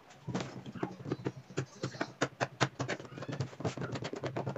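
Quick, irregular clicks and scrapes of a polyethylene welding rod being pressed and rubbed against a plastic kayak hull along a patched crack.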